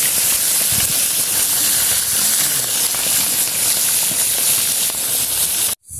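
Whole tilapia deep-frying in a pan of hot oil over a wood fire: a steady, even sizzle. It cuts off suddenly near the end.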